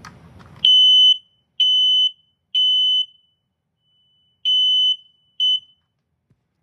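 Smoke alarm sounding during a push-button test: a loud, high-pitched electronic beep in about half-second pulses. It gives three beeps in a row, a pause, then a fourth and a short fifth before it cuts off, the standard three-beep alarm pattern.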